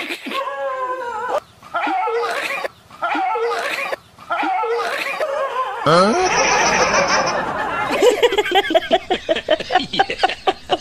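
Human laughter sound effects: short laughing bursts repeating about every second and a half, then a louder stretch about six seconds in that turns into a fast run of ha-ha laughs near the end.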